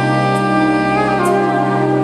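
Saxophone playing a melody of long held notes over a backing track with a steady bass line and a light cymbal tick.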